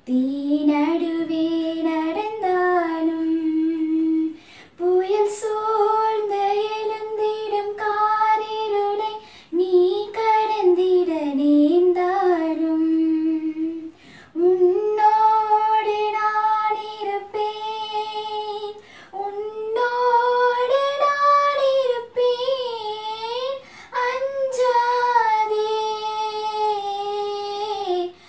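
A young woman singing solo with no instrumental backing. Her phrases are built from long held notes that slide between pitches and waver in places, with short breath pauses every four to five seconds.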